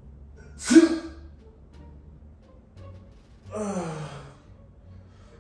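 A person's short, sharp, breathy vocal burst about a second in, then a long sigh falling in pitch.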